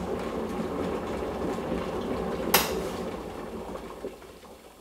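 Electric kettle boiling water, a steady rushing bubble; about two and a half seconds in its switch clicks off as the water reaches the boil, and the boiling noise then dies away.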